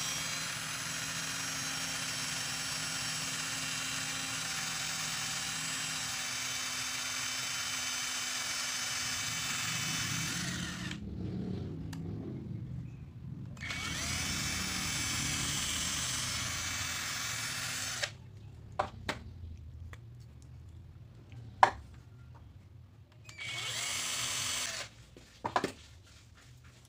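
Small handheld electric drill whining steadily as it bores a hole through a piece of 4 mm PVC. It stops about 11 seconds in, spins up again for about four seconds, and after a few sharp clicks runs once more briefly near the end.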